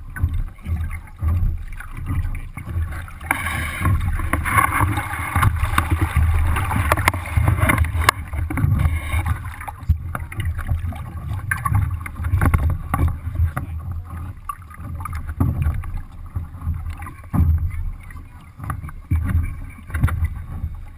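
Lake water slapping and splashing against the hull of a Sunfish sailboat under way, with wind buffeting the microphone as an uneven low rumble. The splashing grows louder for several seconds a few seconds in, then settles.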